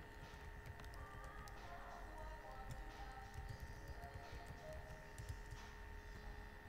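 Computer keyboard typing: faint, irregular key clicks, over a steady faint background whine.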